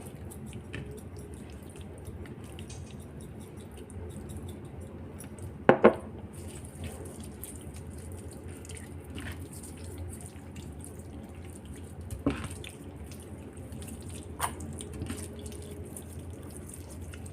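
Faint kitchen handling sounds while seasoning raw chicken, with a few sharp knocks, the loudest a quick pair about six seconds in, over a steady low hum.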